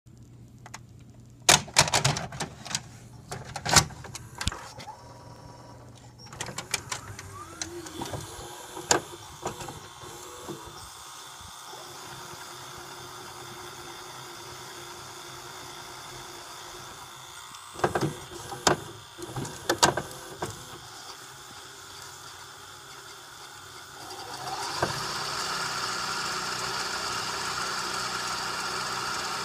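Clicks and clunks of a VCR's tape transport mechanism, then, about three-quarters of the way in, a steady whir starts as the deck winds the videotape at high speed.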